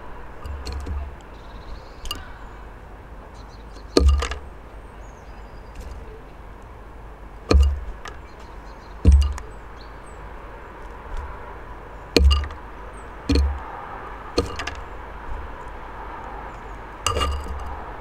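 Hawfinch pecking at seeds in a terracotta dish on a wooden bird feeder: sharp knocks with a dull thump through the feeder, about eight of them at uneven intervals a second or a few seconds apart.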